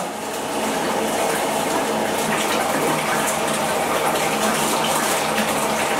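Water running steadily from a bathtub faucet into a filling tub.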